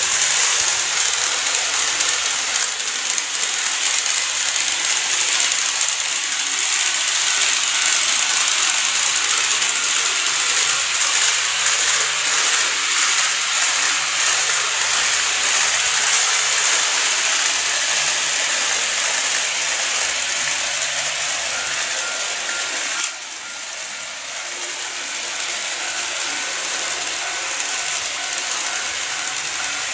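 KATO N-gauge model of a 211 series electric train running on model track: a steady whirring rattle with fine clicking from the wheels and motor. The level drops suddenly about 23 seconds in and then slowly builds again.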